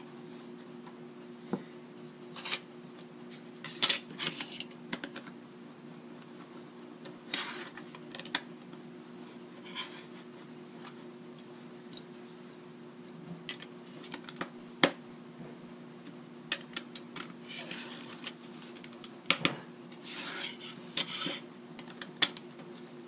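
Plastic LEGO bricks clicking and clattering as pieces are picked from a loose pile on a wooden table and snapped together, in scattered sharp clicks and short bursts of rummaging. A steady low hum runs underneath.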